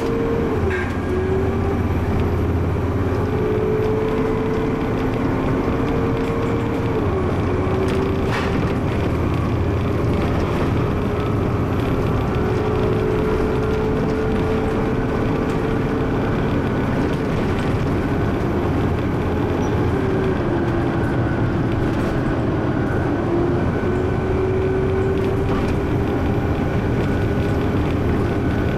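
Bus running on the road: engine and road rumble with a whine that slowly rises and then falls back sharply several times.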